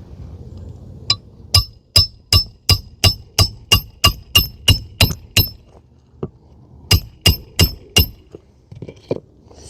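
Hammer driving a roofing nail through a lifted asphalt shingle into the roof decking: rapid ringing metallic strikes, about three a second, a dozen or so in a run. After a short pause come four more strikes as the nail is set flush.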